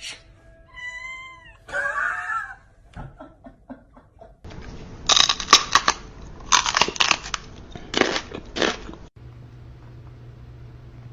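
A cat meowing: two drawn-out calls that bend in pitch in the first couple of seconds. Later comes a string of loud, harsh, noisy bursts, from about four to nine seconds in, then a steady low hum.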